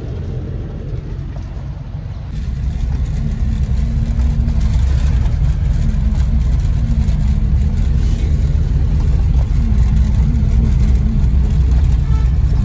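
Engine and road noise heard inside the cabin of a moving car: a steady low rumble with a wavering engine tone, growing louder about two seconds in.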